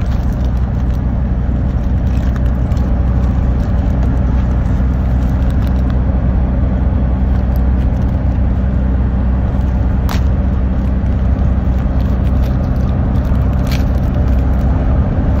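Steady low road and engine rumble heard inside a moving car's cabin, with two brief clicks in the second half.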